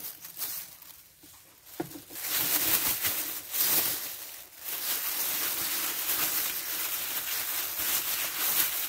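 Thin plastic bag rustling and crinkling as raw beef and salt are kneaded and shaken inside it on a wooden chopping board; the rustling grows louder about two seconds in.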